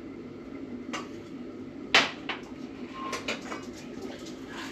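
Kitchen clatter from a cream bottle and a wok on a gas stove: one sharp knock about two seconds in, the loudest sound, then lighter clicks and taps, over a steady low hum.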